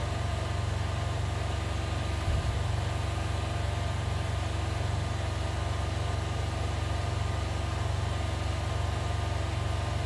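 Steady low mechanical hum of a running motor, with a few faint steady tones above it, and a brief low knock about two seconds in.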